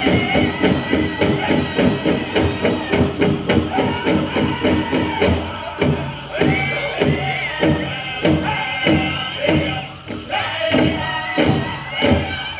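Powwow drum group playing a chicken dance song: a big drum struck steadily, about two to three beats a second, under high-pitched group singing. The singing breaks off briefly about ten seconds in while the drumming carries on.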